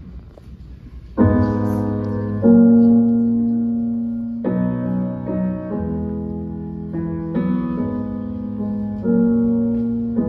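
Slow piano intro to a song: sustained chords come in about a second in and change every one to two seconds.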